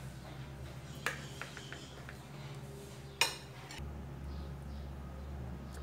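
Light clinks and knocks of a knife and dishes while a cake is cut in a plastic tray: one click about a second in with a few smaller ticks after it, then a sharper clink a little after three seconds. A low steady hum runs underneath.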